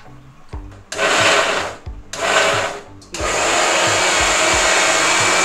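Electric mixer grinder running in two short pulses, then held on steadily for a few seconds, blending mustard seeds, onion, garlic, ginger and green chillies with a little water into a paste.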